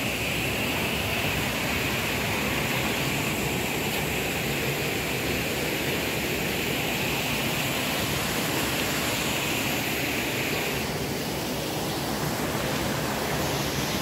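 Steady rush of the Düden River's water spilling over small stone weirs and rocky rapids, an even, unbroken noise.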